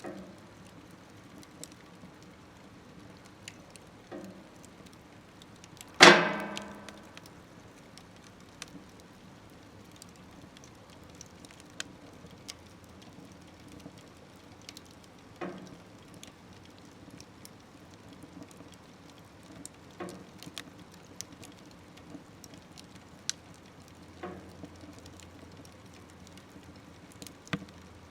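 Wood fire crackling in a smokeless stove, with scattered sharp pops and snaps. About six seconds in comes one loud knock that rings on for about a second, and a few smaller knocks follow later.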